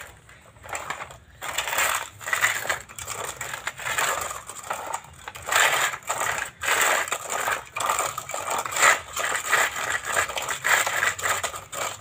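Plastic toy front loader pushed through sand on a concrete floor, its bucket and wheels scraping gritty sand in irregular strokes, with small knocks of hard plastic.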